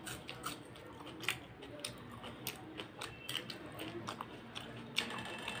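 Close-miked chewing of a mouthful of rice and mutton curry: wet mouth clicks and lip smacks at an uneven pace, the loudest about five seconds in.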